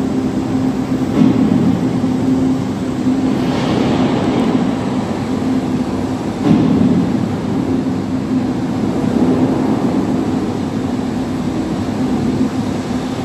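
Immersive exhibit show soundtrack played through the room's speakers: a loud, steady rumbling soundscape over a low hum, swelling briefly a few times.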